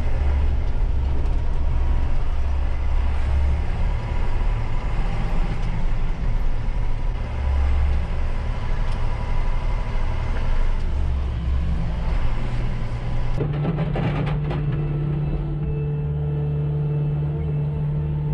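Tractor engine running as it drives, heard from inside the cab as a low, uneven drone. About 13 seconds in it cuts to a skid steer engine running at a steadier, higher pitch.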